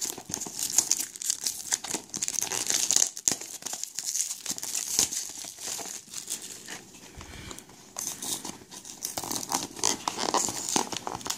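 Cardboard blind box and its packaging being handled and opened by hand: irregular crinkling, rustling and tearing, easing off for a couple of seconds after the middle.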